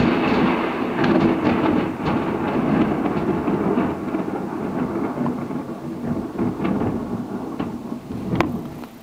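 Thunder from a nearby lightning strike: a loud rolling rumble that follows the flash by about a second, crackling now and then and slowly fading, with a sharp crack near the end.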